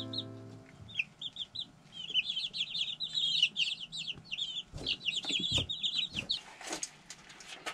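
Young chicks in a brooder peeping: a dense run of short, high cheeps from several birds, with a few sharp knocks near the end.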